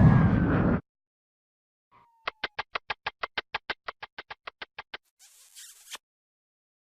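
A loud noisy sound effect cuts off abruptly near the start. After a short pause comes a quick run of about twenty evenly spaced short ticks, about seven a second, growing slightly fainter, followed by a faint hiss.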